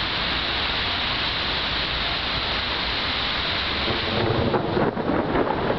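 Steady rushing noise of wind from an approaching squall-line thunderstorm. It grows louder and deeper about four seconds in, as a gust or a roll of distant thunder.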